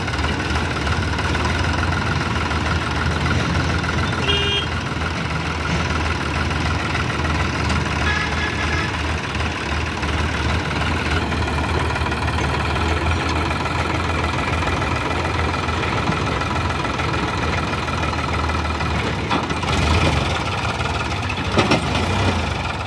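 Sonalika DI 750 tractor's diesel engine running steadily at idle, driving the hydraulic tipper as the trolley unloads soil and is lowered.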